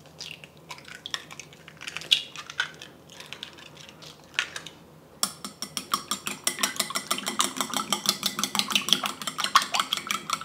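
Eggs being beaten with a utensil in a bowl. A few scattered knocks and clicks come first, then from about halfway a rapid, steady clinking of the utensil against the bowl, several strokes a second.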